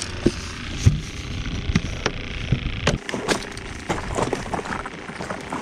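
Scattered knocks, clicks and rustles of a person moving about and handling fishing gear close to the microphone, over a steady low rumble.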